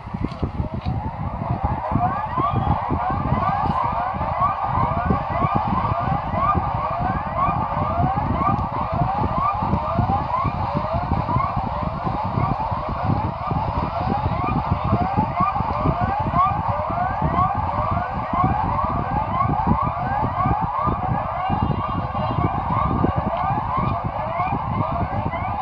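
Alarm siren sounding continuously as fast rising sweeps, repeated over and over and overlapping, over a steady low rumble.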